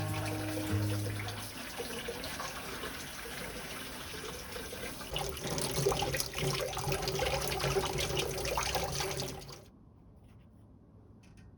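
Tap water running into a kitchen sink, splashing unevenly, shut off abruptly near the end, followed by a couple of faint clicks.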